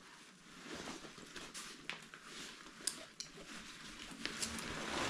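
Nylon rucksack lid pocket being handled and unzipped: soft fabric rustling with a few small sharp clicks.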